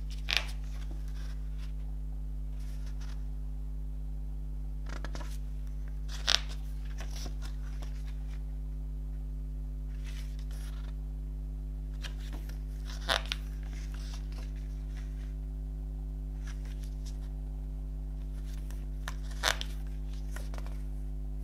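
Glossy paper pages of a CD lyric booklet being turned by hand: four short, crisp rustles about six seconds apart, with fainter paper handling between them. A steady low electrical hum runs underneath.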